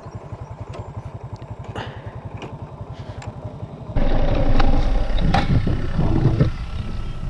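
Motorcycle engine running slowly with an even pulsing beat; about four seconds in the sound turns suddenly louder and deeper as the bike idles at a stop.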